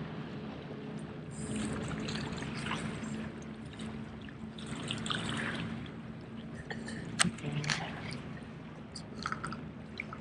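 Small waves washing and splashing against jetty rocks, swelling and fading every second or two. A couple of sharp clicks come about seven seconds in.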